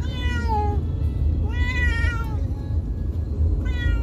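A cat meowing three times, each call under a second long and dropping in pitch at the end, over the low steady rumble of a car's cabin.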